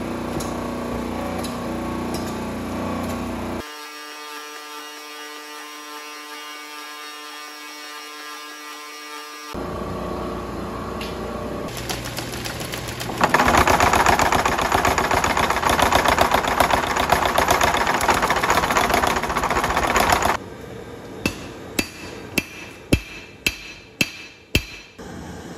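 Mechanical power hammer pounding red-hot carbon steel in a rapid, continuous run of blows for about seven seconds. Then comes a run of separate hand-hammer strikes on the hot steel on an anvil, about two a second.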